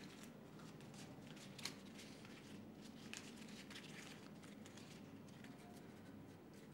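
Near silence with faint rustling and scattered light clicks, one a little sharper about a second and a half in, over a low steady room hum.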